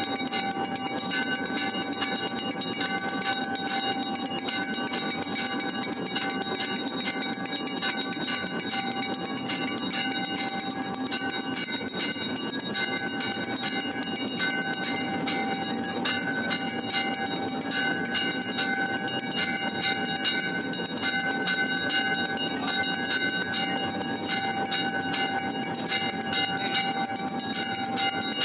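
Many temple bells ringing continuously, as during an aarti. It is a dense, steady clangour of many ringing pitches that does not let up.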